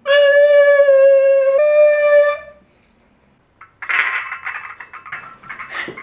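A horn-like comic sound effect: one loud held note of about two and a half seconds that steps slightly up in pitch partway through, then stops. After a short quiet, a softer rough, noisy sound starts about four seconds in.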